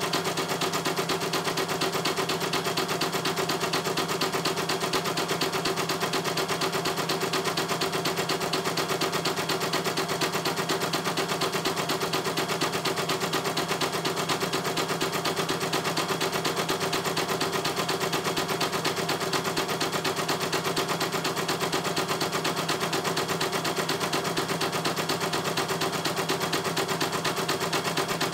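CNY E900 computerized embroidery machine stitching a design: a steady, rapid clatter of the needle bar with the embroidery hoop stepping along under it.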